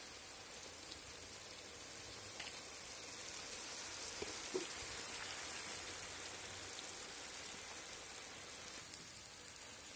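Pork-and-chicken stew in red wine simmering and sizzling steadily in a sadj pan over a campfire, a fine, even hiss; the dish is almost done.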